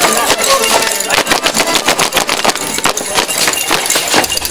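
Many small handbells shaken together by a troupe of Negritos dancers, a dense, fast, rhythmic jingling.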